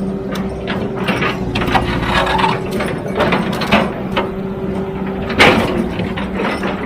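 Heavy earthmoving machine working: a steady engine hum with a constant whine over it, and irregular clanks and knocks of metal and rock, the loudest about five and a half seconds in.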